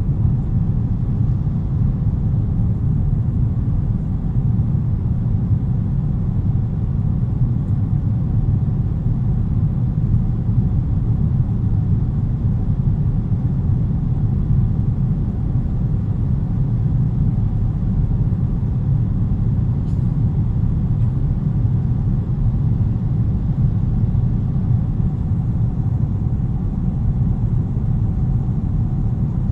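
Steady low rumble of an airliner's engines and airflow heard from inside the passenger cabin during the flight after takeoff.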